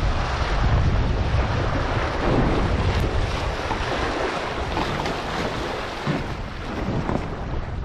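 Wind buffeting the microphone over water rushing and splashing against a windsurf board while it sails.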